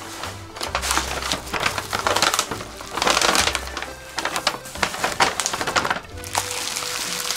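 Paper shopping bags and plastic wrapping rustling and crinkling as wrapped items are lifted out and handled, in irregular bursts, loudest about two to three seconds in. Background music plays underneath.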